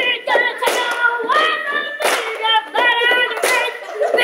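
A high voice singing wordless, wavering notes, punctuated by sharp claps.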